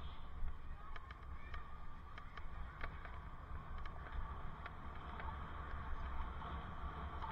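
Wind rumbling on a helmet-mounted camera's microphone while cycling, with scattered small clicks and rattles.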